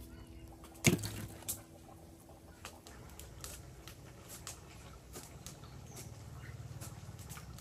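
Wood fire crackling under a cooking pot: scattered sharp pops and snaps, with a low fluttering rumble of the flames that grows louder in the second half. A single sharp knock about a second in.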